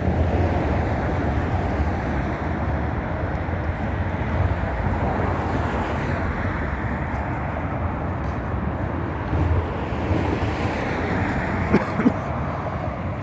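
Steady road traffic noise, cars running past on a busy city street, with two brief sharp sounds near the end.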